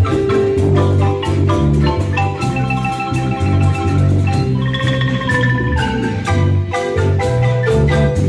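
A marimba ensemble plays a bolero, several players at two wooden-keyed marimbas. The melody runs in long rolled notes over struck chords and a steady deep bass.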